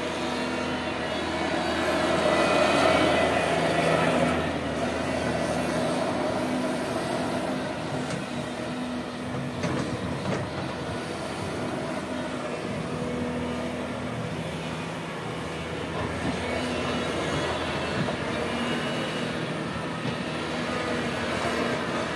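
Cat 330 GC excavator's diesel engine running steadily as it digs and swings a bucket of soil over a dump truck, louder for a couple of seconds near the start.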